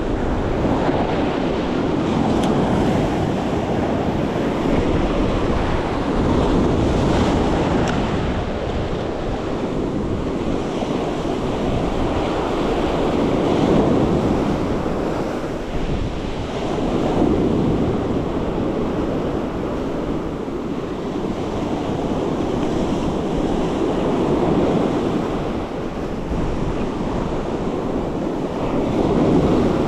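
Ocean surf breaking and washing up a sandy beach, swelling and easing every few seconds as each wave comes in, with wind buffeting the microphone.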